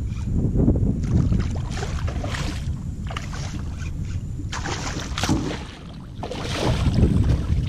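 Steady wind rumble on the microphone, with about four bursts of splashing from a hooked redfish thrashing at the surface.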